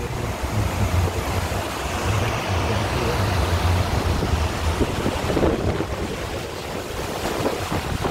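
Strong wind blowing across the phone's microphone: a steady rushing with heavy low buffeting that rises and falls with the gusts.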